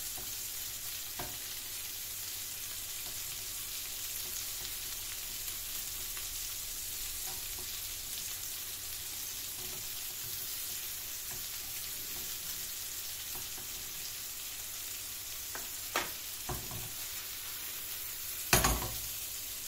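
Köfte (meatballs) sizzling steadily in hot oil in a frying pan. Two short knocks near the end, the second the louder.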